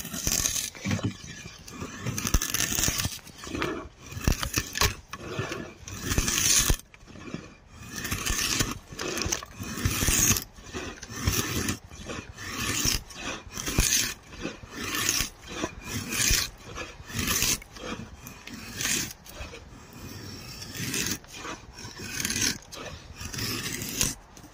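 Hand-forged draw knife, made from an old leaf spring, shaving wood in repeated pulled strokes, a little over one a second, each a short rasping scrape as a shaving peels off.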